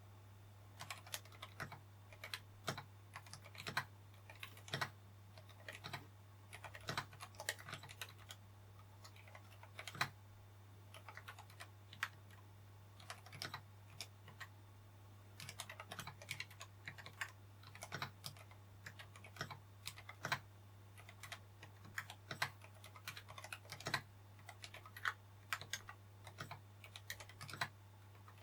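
Typing on a Glorious GMMK Pro keyboard fitted with Akko Haze Pink silent linear switches, whose silicone dampers keep the keystrokes quiet and muted; the strokes come in irregular runs, over a steady low hum.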